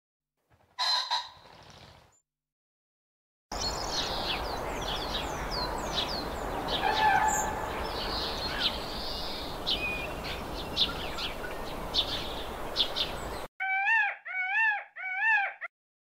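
Birds calling in three separate bursts. First a single short call about a second in. Then, for about ten seconds, a steady hiss full of quick chirps from small birds, followed near the end by three wavering calls that rise and fall in pitch.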